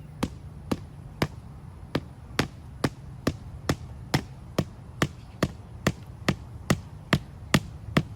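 Steady hammering, about two blows a second, driving a stake or post into the ground; the blows grow a little louder toward the end.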